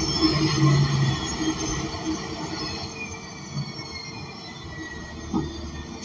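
Cabin sound of a transit bus's Cummins Westport L9N natural-gas engine and Voith D864.6 transmission as the bus slows. High drivetrain whines fall in pitch over a low rumble, and the sound drops off by the middle as the bus coasts.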